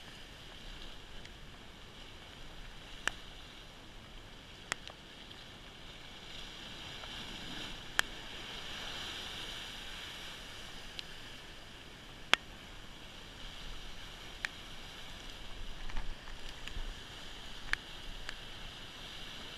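Steady wash of surf breaking against a rocky shore, swelling a little midway, with a handful of sharp clicks scattered through.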